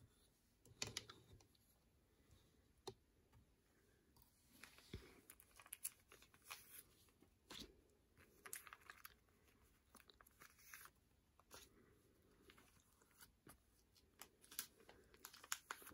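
Faint crinkling and rustling of plastic binder sleeves, with scattered small clicks and taps, as photo cards are slid out of the pockets and the pages are turned.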